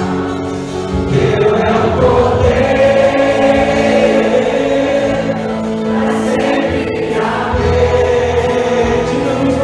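Music: a choir singing, with long held notes.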